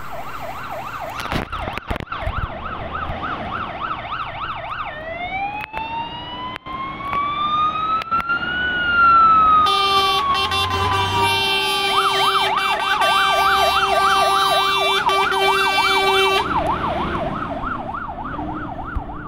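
Fire engine's siren on a fast warble, switching to a slow wail that rises and falls once. It is then joined by the engine's air horns blaring a steady chord for about six seconds as the siren goes back to the fast warble. The horns stop suddenly and the warble carries on.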